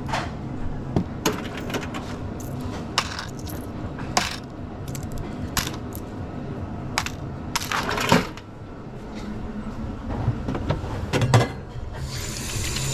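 A run of sharp clinks and knocks from hard objects being handled at a café counter, the loudest about 8 and 11 seconds in. Near the end a coffee machine starts a steady hiss.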